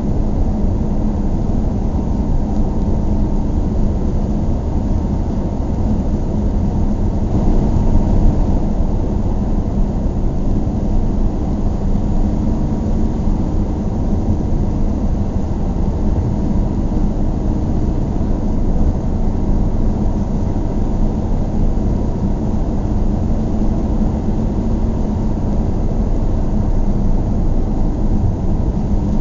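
Car driving at steady speed: a continuous low rumble of engine and tyres on the road, with a steady hum.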